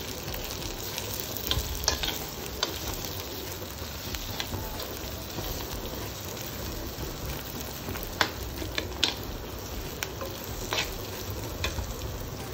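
Chopped onions and curry leaves sizzling in hot oil in a clay pan while being stirred with a steel spoon, which clicks against the pot a few times.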